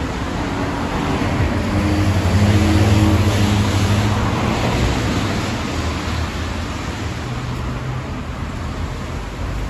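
Road traffic: a motor vehicle's engine hum passes close, loudest about three seconds in and then fading, over steady traffic noise.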